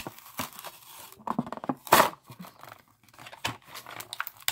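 Plastic blister on a cardboard card being torn and crackled open by hand to free a die-cast toy monster truck: a run of irregular rips and crinkles, the loudest about two seconds in.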